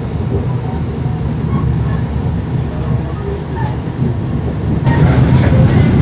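Passenger train in motion, heard from aboard a carriage: a steady low rumble of wheels on the track, growing louder about five seconds in.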